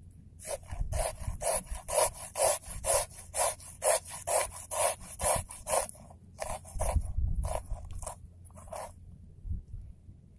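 Ginger being grated on a hand-held metal grater: quick, even rasping strokes, about three a second, then a few slower strokes between about six and nine seconds in.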